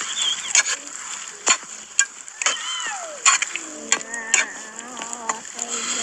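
Minced meat sizzling in a pan over a wood fire, stirred with a metal ladle that knocks and scrapes against the pan several times.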